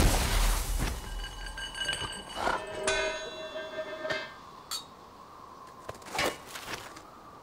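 Cartoon sound effects: a loud noisy crash at the start as the sliding polar bear comes to a stop in the snow, then about three seconds in a metal cooking pot lands with a bright clang that rings for about a second, followed by a few light taps.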